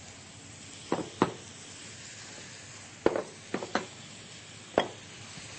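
Faint steady sizzling of oil and onion frying in a pan, broken by several sharp clinks and knocks of small dishes and utensils. The knocks come in a pair about a second in, a cluster around three to four seconds in, and one more near the end.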